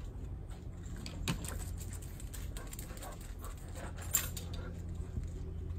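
Small clicks and jingles of dogs moving about on concrete, over a steady low hum, with sharper clicks about a second in and near four seconds.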